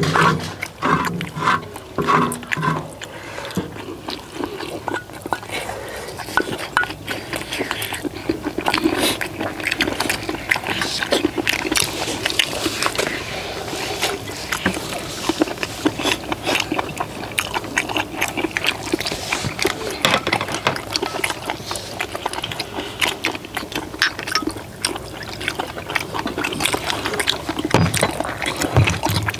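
Close-miked eating: several people chewing and slurping spicy stir-fried webfoot octopus, with spoons clicking against metal bowls.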